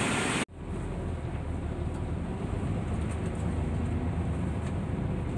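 A loud, even hiss for the first half second cuts off suddenly. After that comes the airport transfer bus's engine running, heard from inside the passenger cabin as a steady low rumble.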